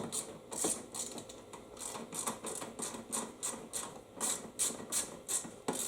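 Socket ratchet clicking steadily, about five clicks a second, as it runs bolts down on a mower's fuel tank.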